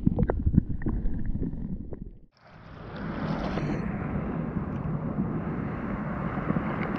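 Muffled knocks and water movement picked up underwater during a trout release. After a brief dropout about two seconds in, a steady rush of creek water flowing over rocks, with some wind on the microphone.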